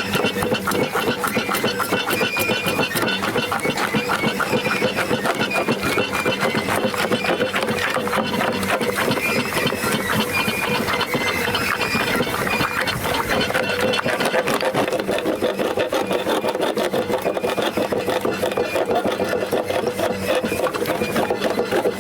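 A machine running steadily with a fast, even clatter and a high squeal.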